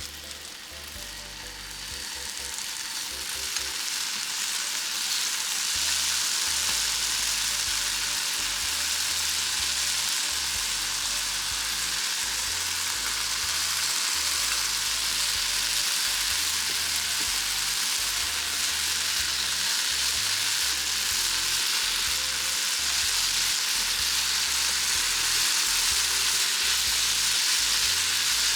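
Potato and celery stir-fry sizzling in oil in a frying pan. The sizzle builds over the first few seconds, then holds steady.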